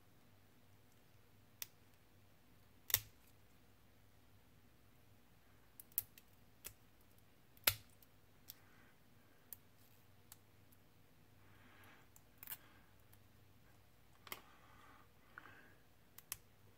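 Orange-handled flush sprue cutters snipping the sprue gates off plastic model parts: about a dozen sharp snips at uneven intervals, the loudest about 3 and 7.5 seconds in, with soft handling noise of the plastic between some cuts.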